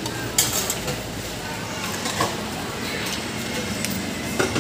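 Clinks of a serving scoop and bowl as food is dished up: one sharp clink about half a second in and a couple of lighter clicks near the end, over a steady background hum.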